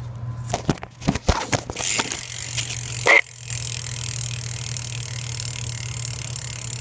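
BMX rear hub freewheeling with its fast, steady buzz of ratchet clicks as the wheel turns; the owner calls the hub sound fairly loud. A few knocks and one louder clack come in the first three seconds.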